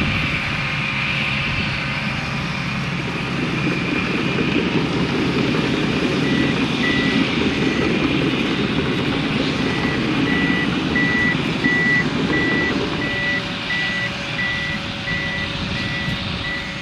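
Komatsu D61PXi bulldozer's diesel engine running under load, its reversing alarm starting to beep about six seconds in and growing louder, a steady high beep about one and a half times a second: the dozer is backing up.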